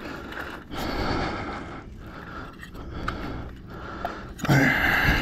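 A man breathing heavily close to the microphone, with two loud breathy exhalations, the second and louder one near the end carrying a slight voiced sigh, as he wrestles with a catfish in a landing net.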